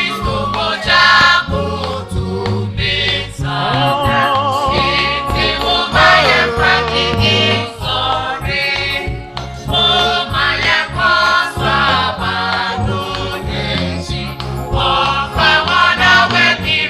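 Gospel music: singing voices with vibrato over a steady bass beat.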